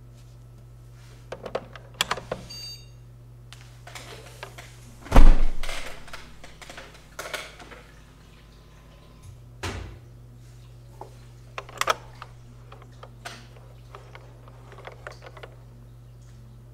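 Desktop PC booting: a steady low hum of fans and monitor under scattered small clicks and knocks. One loud thunk comes about five seconds in, followed by a low whir for about four seconds, and another knock comes just before ten seconds.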